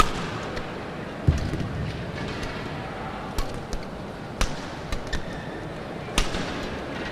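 Badminton rally: sharp cracks of rackets striking the shuttlecock, four of them a second or two apart, with a dull thud of a player's footwork on the court, over steady hall noise.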